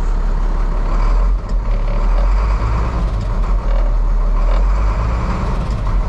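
International DT466E inline-six diesel running steadily at idle, heard from inside the truck's cab. It runs smoothly now that the missing check ball in the high-pressure oil pump's ferrule plug has been replaced.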